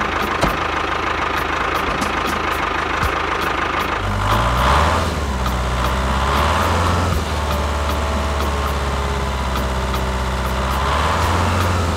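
A diesel tractor engine running steadily with a regular ticking knock, picking up speed about four seconds in.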